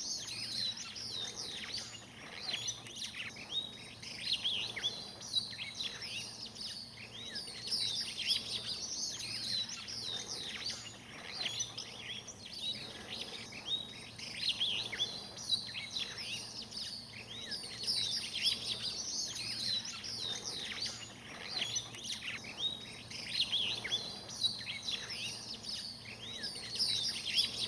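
A dense chorus of many small birds chirping and calling, short high notes overlapping and swelling and fading every few seconds.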